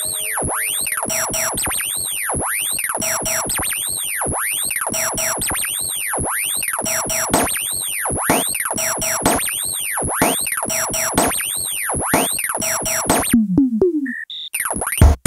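Background electronic synthesizer music, a repeating pattern of sweeping synth tones that drops out briefly near the end.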